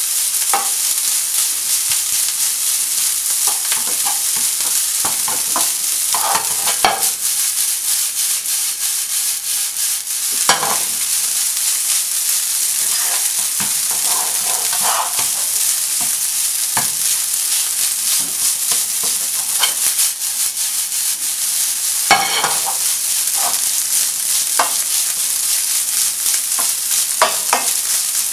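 Egg fried rice sizzling in a frying pan, stirred and turned with a slotted spatula that scrapes and taps against the pan at irregular intervals over a steady hiss.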